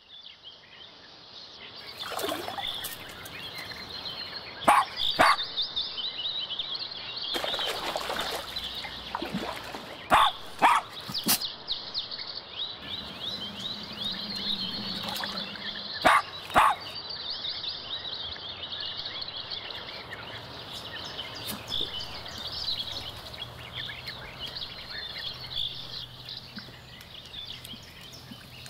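West Highland White Terriers giving short, sharp barks, mostly in pairs: around five seconds in, twice about ten seconds in plus one more, and a pair at about sixteen seconds. Under them runs a steady, high-pitched outdoor background of fine chirping.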